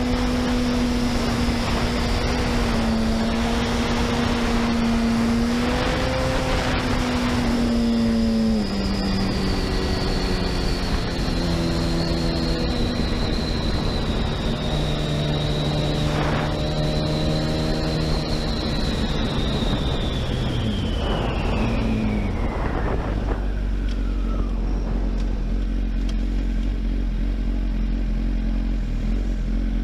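Honda CBR1000RR sportbike's inline-four engine running at a steady pitch under wind noise, then its note drops in several steps as the bike slows, with a thin high whine falling away alongside. It settles to a low, steady idle near the end.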